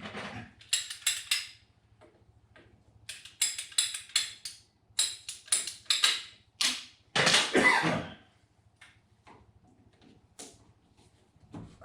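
Hand saw cutting through plumbing pipe in runs of quick strokes, about four a second, with short pauses between runs and one heavier stroke near the end.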